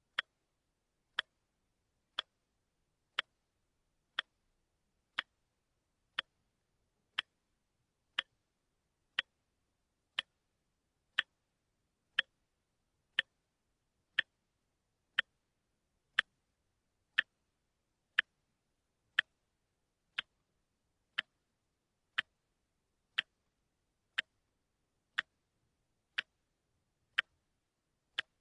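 A watch ticking: short, sharp ticks evenly spaced about one a second, with silence between them.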